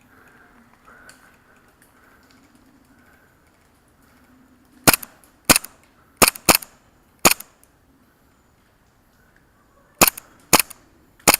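Airsoft gun firing single shots: five sharp cracks in about two and a half seconds, a pause, then three more near the end.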